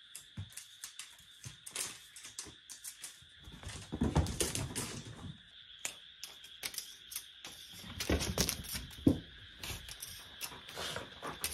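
Cat wand toy's flap scraping and flicking on the floor: a rapid, irregular run of scratchy clicks and rustles, with louder scraping bursts about four and eight seconds in.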